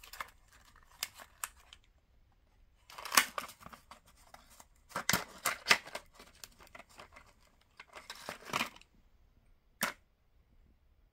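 Scooter variator rollers being handled: plastic packaging rustling and small black rollers with brass bushings clicking against each other and the wooden bench in several short bursts. One sharp click comes near the end as a roller is set on a digital pocket scale.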